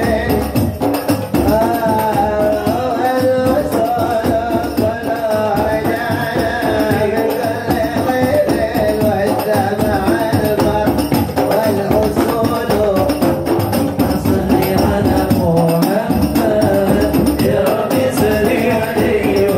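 Hadroh ensemble performing sholawat: a chorus of male voices singing together over rebana frame drums beaten in a dense, interlocking rhythm.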